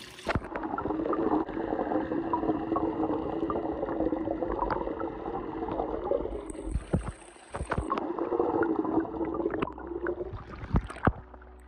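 Muffled gurgling and churning of pool water picked up by a camera held under the surface, over a steady low hum, with a few knocks near the end.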